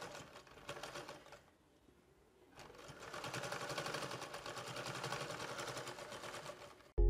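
Household sewing machine running at a quick, even stitching rhythm while sewing an elastic ear loop onto the edge of a cloth face mask. It stops for about a second just after the start, then runs again. Loud music cuts in abruptly at the very end.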